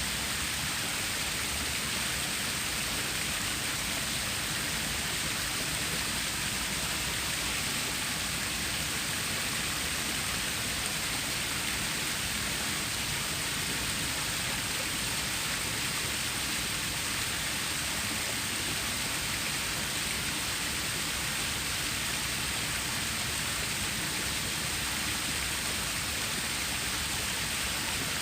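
Running water of a stream or small waterfall: a steady, even hiss of flowing water that does not change.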